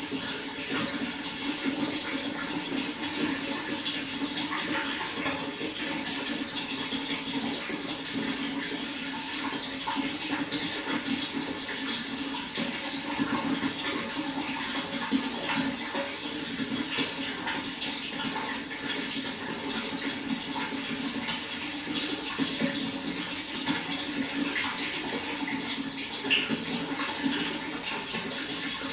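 Water flowing steadily, an even, unbroken rush with many small splashes in it.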